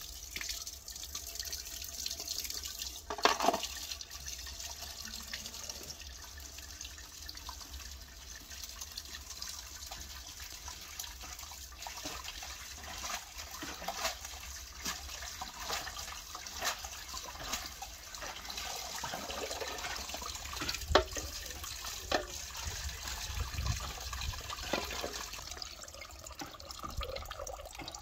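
Thin stream of water running steadily from a spout into a clay basin, with splashing as leafy greens are rinsed by hand under it. A few sharper splashes stand out, the loudest about three seconds in and about twenty-one seconds in.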